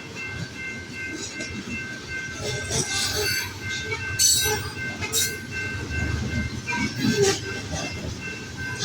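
Cars of a loaded grain train rolling past: a steady low rumble with a few faint, steady high tones running through it, and sharp clanks of the wheels and couplers several times.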